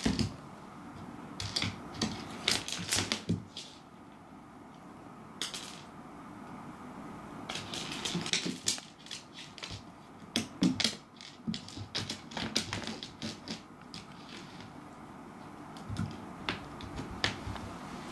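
A cat batting a hard dried persimmon seed across a wooden floor: irregular clusters of light clicks and taps as the seed skitters and paws strike the boards, quieter for a while near the end.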